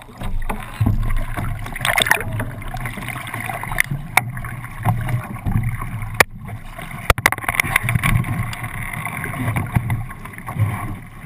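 Water rushing and splashing along the hull and deck of a 29er sailing dinghy under way, with wind buffeting the microphone. A few sharp knocks cut through about four, six and seven seconds in.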